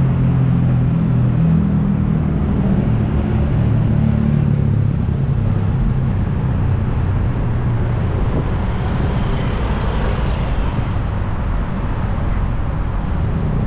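City street traffic: engines of cars and motorbikes running close by over a steady low rumble, with one engine's hum strong in the first few seconds and another vehicle passing about ten seconds in.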